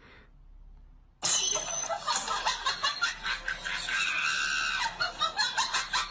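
Quiet for about a second, then a sudden outburst of human voices laughing and shrieking.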